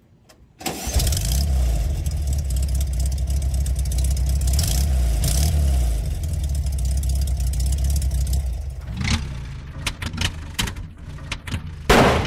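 A car engine starts suddenly and runs steadily with a deep rumble for about eight seconds, then falls away. A run of sharp clicks follows, and a loud burst of noise comes at the very end.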